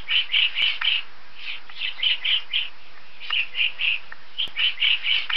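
Woodpecker calling: short, high notes in quick groups of three to five, repeated about every one and a half seconds.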